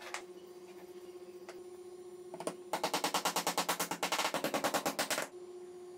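A small hammer tapping a wooden block: a fast, even run of sharp knocks, about ten a second, starting a little before halfway and stopping about a second before the end. A steady faint hum runs underneath.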